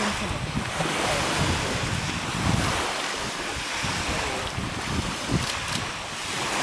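Lake waves lapping with wind blowing across the microphone, a steady rushing noise; the low wind rumble eases about halfway through.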